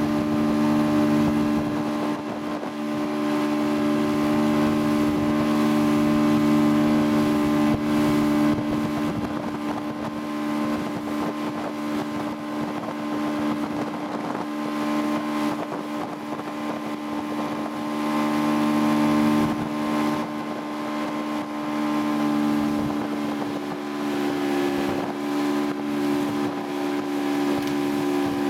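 Motorboat engine running at a steady speed while towing, a constant hum of several tones, with wind on the microphone and water rushing in the wake.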